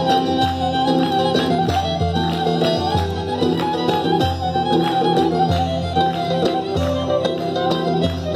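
Cypriot folk dance music: a violin melody over a steady low beat, accompanying a dance with glasses balanced on the head.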